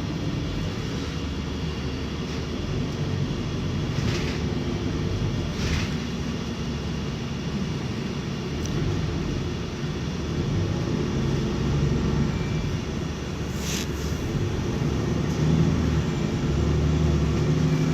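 Interior of a moving city bus: steady low engine and road rumble, rising and falling slightly, with three short hissing sounds.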